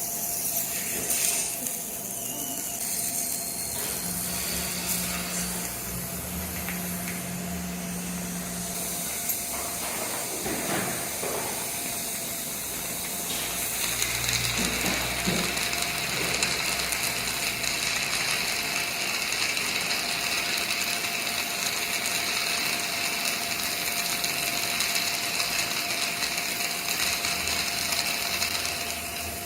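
High-speed dental drill running with a steady high-pitched whine over the hiss of air and water spray; the whine grows stronger about halfway through.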